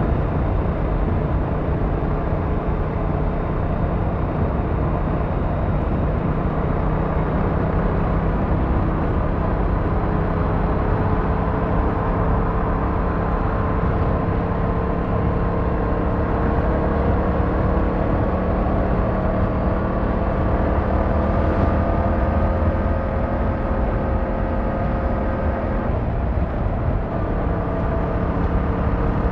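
Yamaha MT-07's 689cc parallel-twin engine running while riding, over a steady rush of noise. The engine note climbs slowly through much of the stretch, then breaks and drops near the end, as on a gear change or easing off the throttle.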